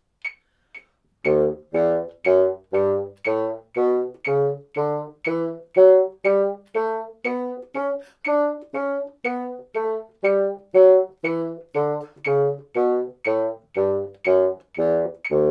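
Moosmann bassoon playing a D major scale two octaves up and back down, one detached note to each click of a metronome ticking about twice a second. The metronome clicks alone for about a second before the first note.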